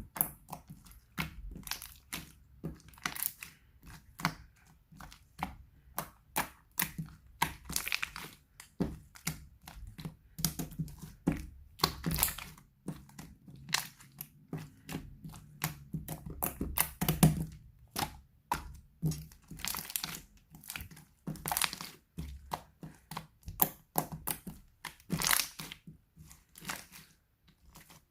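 Hands pressing and squishing a water slime, giving an irregular run of sharp crackling pops, a few every second.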